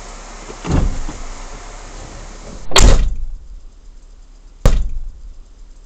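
Camper van doors and body panels banged as someone gets out: a dull thump about a second in, then a loud bang, and about two seconds later a sharp metallic slam.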